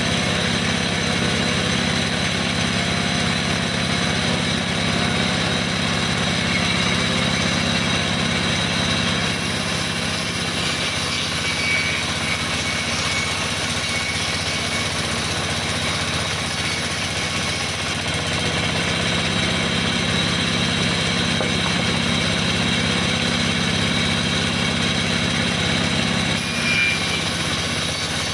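Band sawmill running steadily, its vertical band blade cutting lengthwise through a log as it is fed through. Two brief high squeals come through, one around the middle and one near the end.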